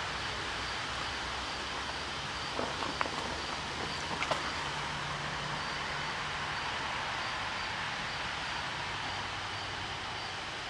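Steady outdoor background noise, a low hum and hiss, with a few short sharp clicks about three and four seconds in.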